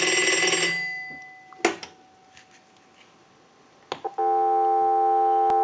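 Western Electric 236G payphone's bell ringing on a ring cycle from a line analyzer, stopping and dying away about a second in. A clunk follows as the handset comes off the hook. A few clicks about four seconds in lead into a steady telephone dial tone.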